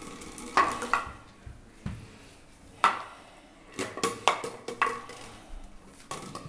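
Small hard object clattering on a tiled floor as a toddler knocks it about and handles it: a series of sharp, irregular knocks and clicks.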